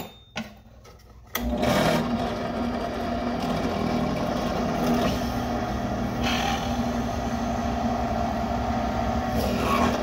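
WEN benchtop drill press switched on about a second and a half in, its motor then running steadily.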